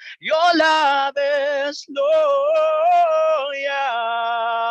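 A voice singing a slow worship song in long, sustained notes with vibrato, ending on one note held for the last second or so.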